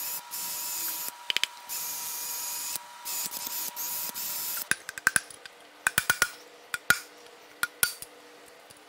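Cordless power tool, with a long bar reaching into a cylinder bore, run against a seized piston in a Chevrolet 454 big-block. It runs steadily with two short breaks for about four and a half seconds, then stops; after that come scattered light metal clinks and knocks.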